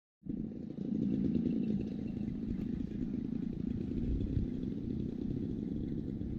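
Engines of a giant-scale P-38 Lightning model airplane running steadily, heard from a distance as a low rumble.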